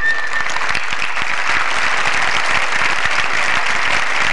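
Audience applauding, starting over the last held note of a tune. The clapping stops abruptly near the end.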